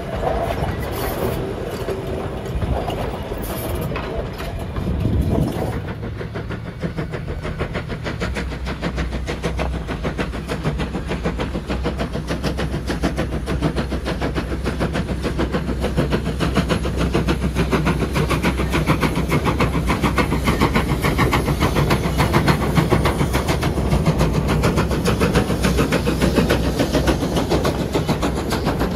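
Passenger carriages rolling past close with wheels clacking over the rail joints, then, after about six seconds, former Commonwealth Railways steam locomotive NM25 working, its rapid exhaust beats heard over the steady low rumble of a car driving alongside.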